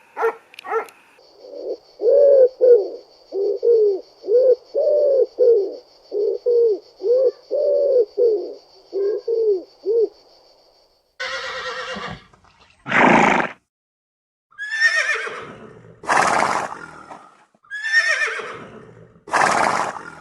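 A run of short, low, evenly repeated calls, about two a second, with a steady high tone over them. Then, about halfway through, a horse whinnies about five times, each neigh loud and falling in pitch.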